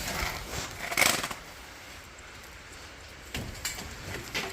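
Scuffing, rustling and light knocks of a work light and its cord being pulled out and moved into place: two short scrapes in the first second and a half, then quieter clattering from about three seconds in.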